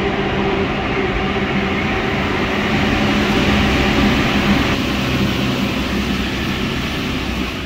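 Paris Métro line 4 MP89 rubber-tyred train running, heard from inside the car: a steady rumble and hiss with a low hum that fades out about halfway through.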